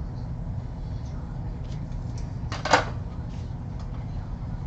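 Trading cards and a torn foil pack being handled on a tabletop mat: a few faint clicks, then one brief, louder rustle about two and a half seconds in, over a steady low hum.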